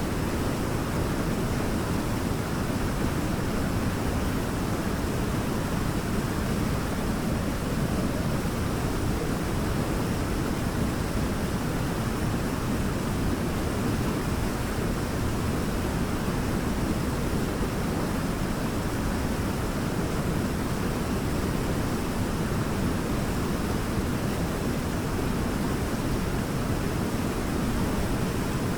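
Waterfall: water falling and splashing in a steady, even rush with a deep low end.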